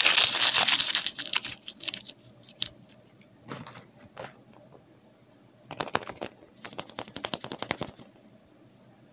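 Foil wrapper of a Kinder Surprise chocolate egg crinkling as it is peeled off, loudest in the first second and a half. Then come scattered clusters of sharp crackles and clicks as the egg and foil are handled.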